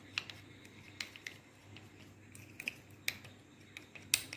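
A spoon clicking and tapping against a small dish: a handful of light, irregular clicks, the sharpest near the end.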